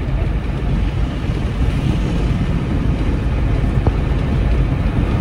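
Diesel engine of a Mercedes-Benz 1417 truck running under way, heard from inside the cab as a steady, heavy rumble mixed with road noise. The engine has just been overhauled.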